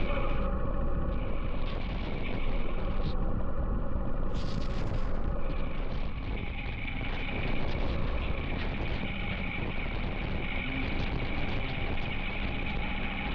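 Honda CB350 Highness single-cylinder engine running under way, with heavy wind on the microphone; the engine note drifts slowly up and down with speed.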